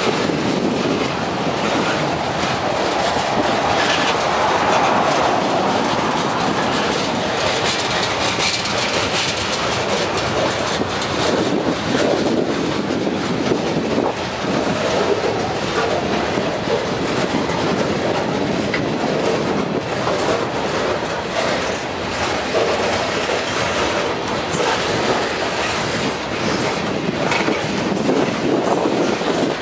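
Freight train of tank cars and boxcars rolling past close by: a steady, loud rumble of steel wheels on rail, with repeated clacks as the wheels cross the rail joints.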